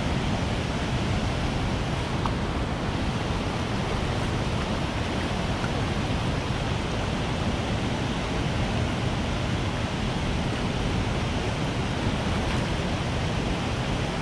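Steady rush of river water pouring over a low rock ledge and running through the pool, an even noise that doesn't change.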